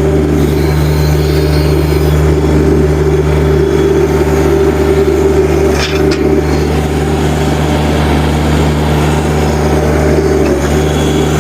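Heavy equipment engine running steadily at a constant speed, with a single short click or knock about six seconds in.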